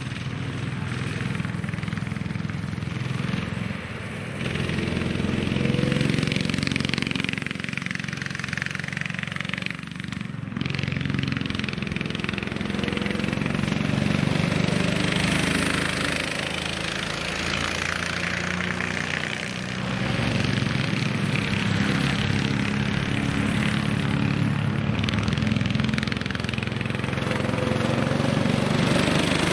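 Rental go-kart engines running as karts lap the track, the engine note swelling and fading as they pass and change throttle, with brief dips about four and ten seconds in.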